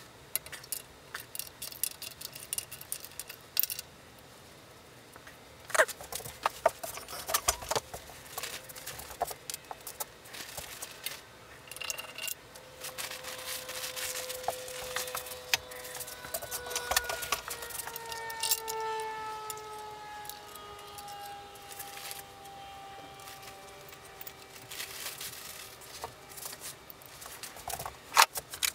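Metal clinks and rattles of a wrench and loose engine parts as the rocker shaft assembly is unbolted and lifted off a Volkswagen Beetle's air-cooled flat-four cylinder head. Through the second half a faint tone slowly falls in pitch in the background.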